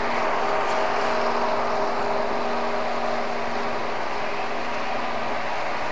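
Steady machinery drone from the moored vessels, an engine or generator running, with a few held tones over a hiss; some of the higher tones fade out partway through.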